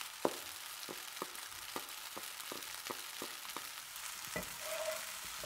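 Nasi goreng sizzling in a frying pan while a slotted spatula stirs and turns it, the spatula knocking against the pan about twice a second.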